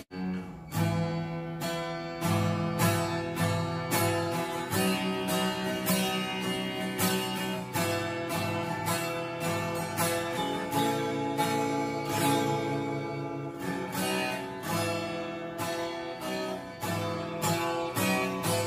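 Custom Cole Clark acoustic-electric guitar being played, strummed and picked chords in a steady rhythm of about two strokes a second, each chord ringing on under the next.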